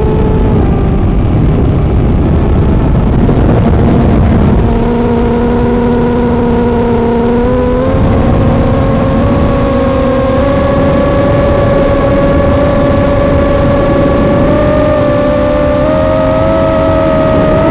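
Racing quadcopter's brushless motors and propellers whining in flight over a loud, rough hiss. The pitch drops near the start, steps up about eight seconds in and then holds fairly steady, rising a little near the end.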